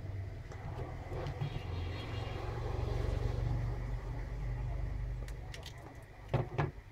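Rustling and light clatter as a charger's circuit board is handled inside its plastic case, ending in two sharp knocks about six and a half seconds in. Under it a low rumble swells and fades.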